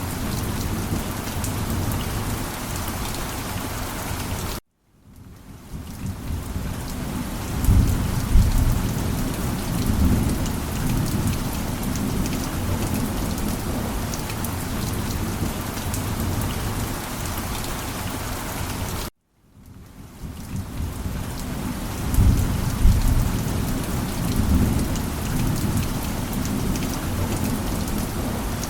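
Steady heavy rain with thunder rumbling low, twice. Twice the sound cuts out abruptly for a moment and fades back in, and a low rumble of thunder swells a few seconds after each.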